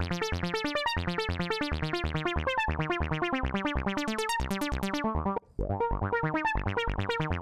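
A fast run of short, plucky synth notes from Ableton's Operator, played through FabFilter Volcano 3. Volcano's envelope follower is in transient-onset mode, so each note's attack kicks the filter and gives the sequence extra movement. The run breaks off briefly about five and a half seconds in, then resumes.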